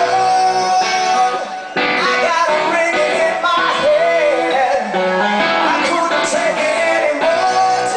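Live rock band playing, with electric guitar and a male lead singer.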